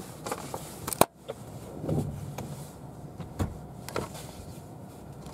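Inside a car cabin: a loud sharp click about a second in, with the steady background hum cutting off at the same moment, followed by a few faint knocks and handling rustles.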